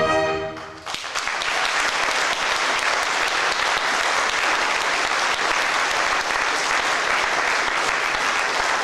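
A fanfare band's final held chord dies away, and about a second in the audience breaks into steady applause that carries on.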